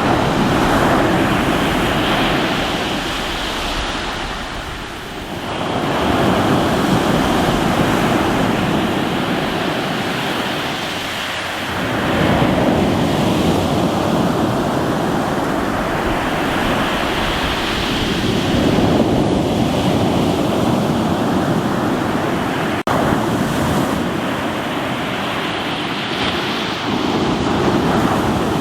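Sea waves breaking and washing over a rocky shore: a continuous surf roar that swells and eases about every six seconds.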